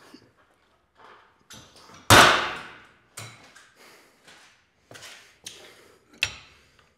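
Weight-stack plates of a cable lat pulldown machine dropping back onto the stack as the handle is let go: one loud metal clank about two seconds in that rings briefly. Lighter knocks follow, and a sharp metallic click near the end as the selector pin is moved in the stack.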